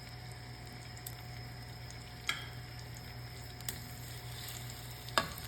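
Tuna fillet frying in olive oil in a pan: a steady, quiet sizzle, with three sharp clicks spread through it.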